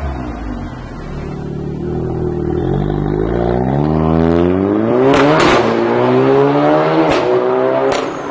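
Audi S3's turbocharged 2.0 four-cylinder engine through a stainless steel catback exhaust, accelerating: the exhaust note climbs in pitch over about three seconds, then holds high. A few sharp cracks cut through it about five, seven and eight seconds in.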